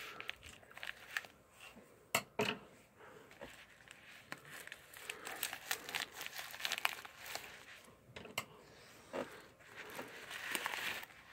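Plastic bubble mailer crinkling and rustling as hands handle it and work it open, with a few sharp clicks and snaps.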